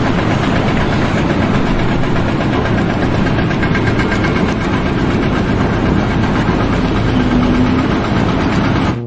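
A loud engine or heavy machine running steadily; it begins and cuts off abruptly.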